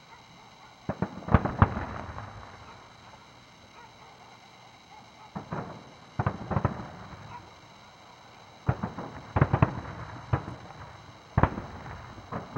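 Aerial firework shells bursting: four clusters of sharp bangs, several reports in each, coming every three seconds or so, each cluster trailing off in echo.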